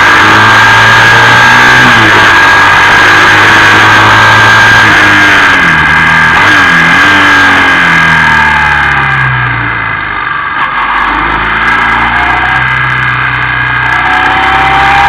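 Motorcycle engine running under load through a series of bends, the revs rising and falling as the throttle is worked, with a steady high whine and wind rush on the microphone. The engine eases off about ten seconds in, then pulls again near the end.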